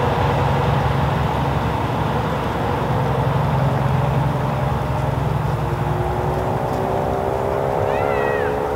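Steady drone of a distant engine, a low hum under several tones that slowly drift in pitch. A short high chirp near the end.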